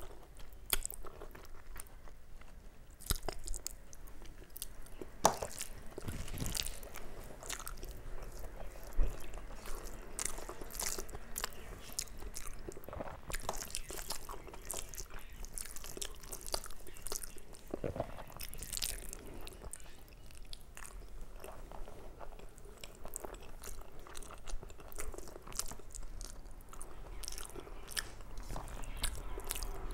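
A person chewing big mouthfuls of rice and curry close to the microphone: steady chewing with many small irregular mouth clicks and a few sharper crunches.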